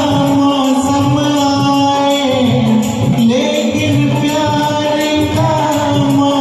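Karaoke backing music for a Hindi film song, with a steady beat under a long held melody note that dips and returns about halfway through.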